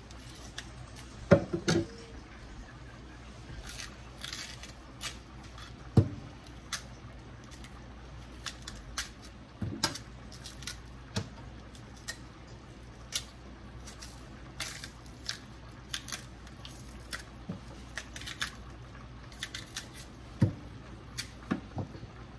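Small kitchen knife peeling a green plantain: irregular short clicks and scrapes as the blade cuts and pries off the tough peel, with a few sharp knocks, the loudest near the start.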